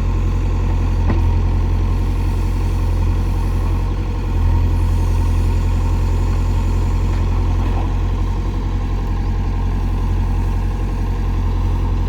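JCB backhoe loader's diesel engine running steadily with a deep low hum, getting a little louder about four seconds in.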